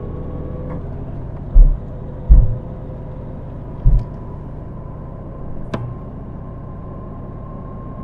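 Car road noise heard from inside the moving car: a steady low engine and tyre rumble with a faint steady whine. Three short, heavy low thumps come in the first half, and a sharp click a little past the middle.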